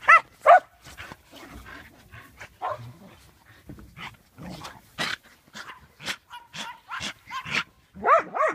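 Dogs barking: two sharp barks at the start and two more near the end, with fainter short barks and yips between.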